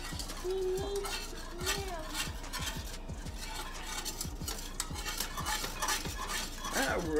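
A utensil stirring a milk, butter and flour bechamel sauce in a pot on the stove, scraping and tapping against the pan at about two to three strokes a second.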